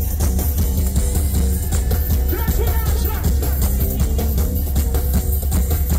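Live band music played loud over a PA, with a heavy bass line and a steady beat.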